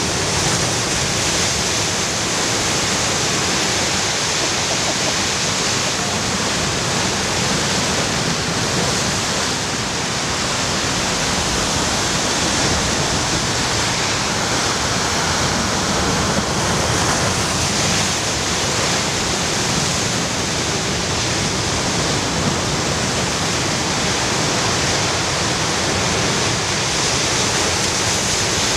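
Heavy surf breaking over and pouring between coastal rocks: a steady, continuous rush of churning white water.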